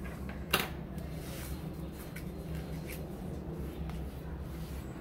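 Handling noises from potting: a sharp knock about half a second in, as of a plastic tray or pot set on the table, then faint scraping and rustling of potting soil, over a steady low hum.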